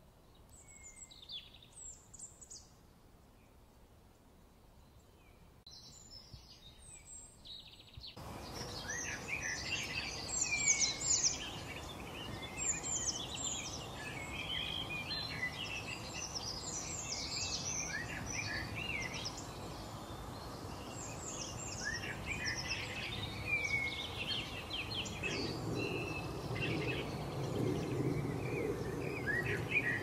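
Wild birdsong: a few scattered chirps and whistles, then about eight seconds in a dense chorus of many birds calling over each other begins over a steady background hiss.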